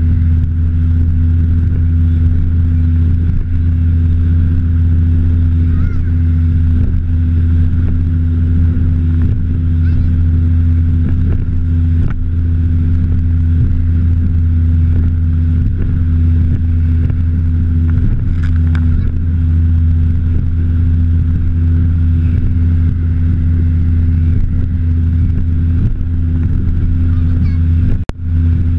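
A bass boat's outboard motor running steadily at cruising speed, a constant low drone, with wind and water rush from the hull planing over chop. The sound cuts out briefly near the end.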